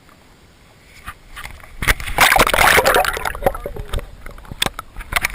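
Hooked bass splashing at the water's surface: quiet at first, then a loud burst of splashing about two seconds in that tails off into scattered splashes and knocks.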